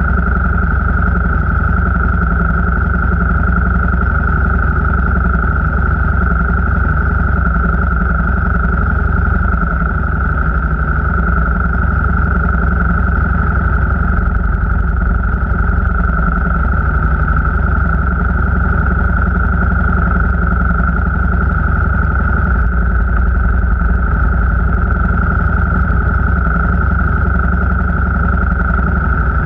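Steady engine and road noise from a vehicle being driven along at an even pace, with a strong, steady high hum over a deep rumble.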